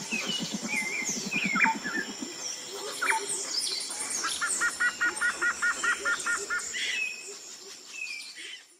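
Birdsong in woodland: several birds chirping and whistling short rising and falling calls. One bird repeats a quick two-part note about five times a second for a couple of seconds midway. A low rapid rattle sounds in the first second and a half, and the sound fades out at the end.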